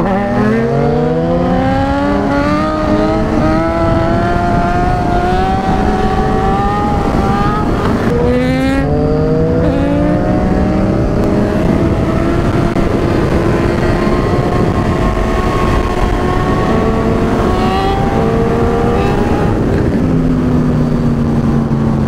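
Sport motorcycle engines accelerating hard, with wind rush. The pitch climbs steadily, drops at a gear change about eight seconds in and climbs again, then holds and eases back to a low, steady note near the end.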